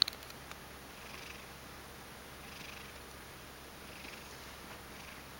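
Ragdoll cat purring softly, in slow breaths about every second and a half. A sharp click comes right at the start.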